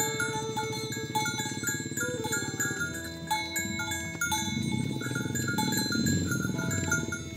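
Background music with a light, tinkling melody of short notes over a fuller low accompaniment.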